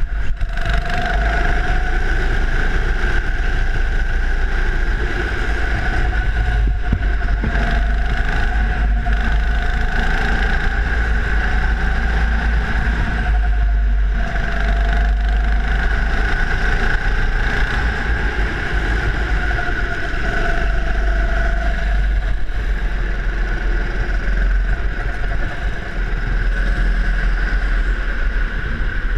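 Go-kart engine running at speed, its note wavering up and down as the kart accelerates and slows through the corners, over a heavy low rumble of wind and vibration on the kart-mounted camera.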